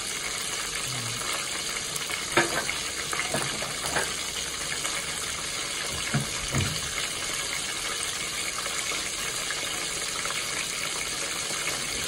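Whole boiled doves frying in oil in a pot, a steady sizzle with a few crackles and pops, as they brown after boiling.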